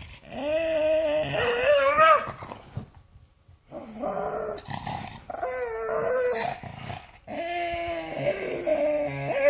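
Pug making long, wavering growl-like vocal noises in three drawn-out bouts with short pauses between, the pitch bending up and down within each.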